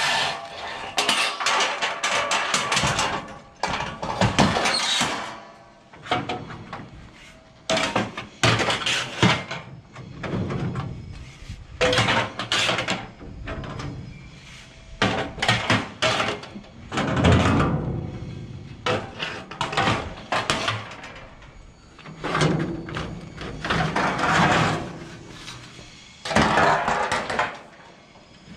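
Irregular metal clanks, knocks and scraping from trailer stanchions and side boards, with ratchet straps rattling as they are pulled loose from a strapped load of steel tubes on a flatbed truck trailer.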